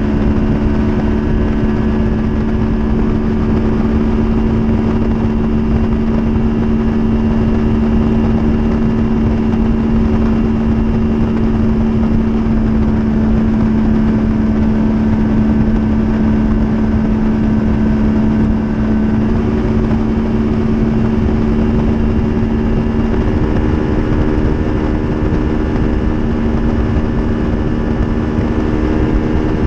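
Bass boat's outboard motor running steadily at cruising speed, its drone holding one pitch with a slight change in note about two-thirds of the way through, over a low rush of wind and water noise.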